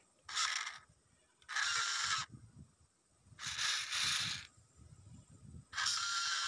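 The small electric motor and plastic gearbox of a wired-remote toy wheel loader whirring in four short bursts, each under about a second, as it is driven in spurts.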